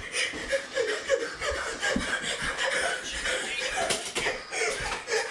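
A scuffle between two people: wordless yelling and laughter over rustling, with a few slaps and knocks.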